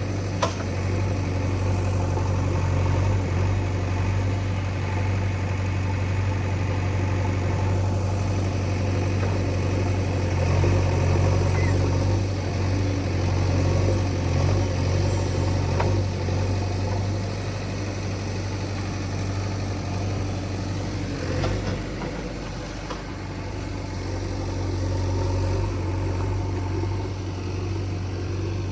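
JCB 3DX backhoe loader's diesel engine running steadily, with a sharp knock near the start and a few fainter knocks later.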